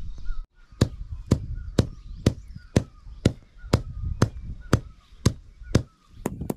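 A bansula (small adze) strikes a bundle of bhimal twigs against a stone slab in sharp, even blows about two a second, quickening just before the end. The twigs are being crushed so that their bark fibres shred finer.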